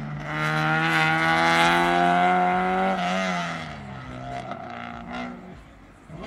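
A car engine accelerating hard, its pitch climbing steadily for about three seconds, then falling away sharply and running on at lower revs, fading toward the end.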